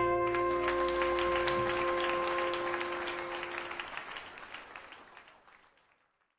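The band's final chord is held and fades out while an audience applauds over it. The clapping thins and dies away with the chord.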